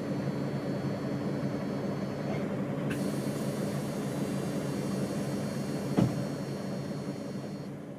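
Iveco Crossway LE bus's six-cylinder Cursor 9 diesel engine running steadily, heard inside the bus, with a thin high whine over it. A hiss joins about three seconds in, there is one sharp knock about six seconds in, and the sound fades out near the end.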